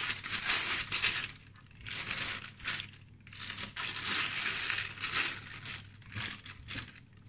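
Disposable plastic piping bag crinkling and rustling in irregular spells as it is handled and filled with choux pastry dough.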